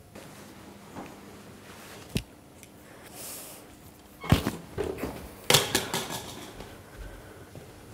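A few sharp knocks and clatters with rustling between them, the loudest about four and five and a half seconds in.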